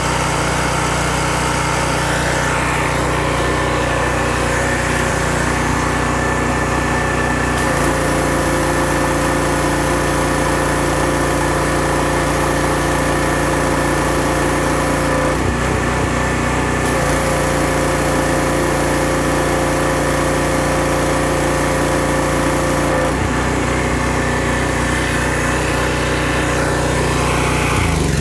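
Generac 2800 psi gas pressure washer running steadily while its wand sprays water. The engine and pump sound shifts a few times along the way.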